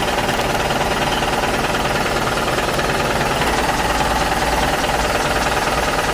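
Toy construction vehicle's small motor and gears running with a steady, rapid rattling buzz.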